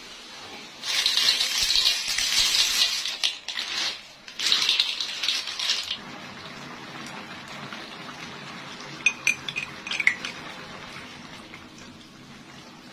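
Paddy snails tipped into a wok of simmering sauce: a few seconds of shells clattering on the metal together with sizzling, with a short break in the middle. About nine seconds in come a few light clinks.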